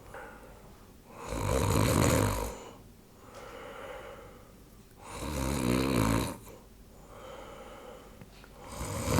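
A sleeping person snoring: two loud, rattling snores about four seconds apart, each followed by a softer breath out.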